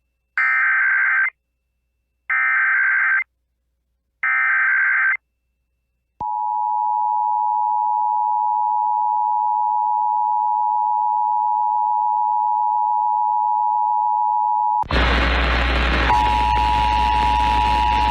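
Emergency Alert System monthly test signal: three short bursts of screeching SAME header data tones, each just under a second, then the steady two-tone attention signal starting about six seconds in. About fifteen seconds in, loud static hiss comes in over the tone.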